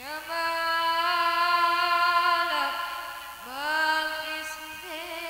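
A singer holding long drawn-out notes, each sliding up into pitch at its start: one lasting about two and a half seconds and falling away, then a second starting about three and a half seconds in.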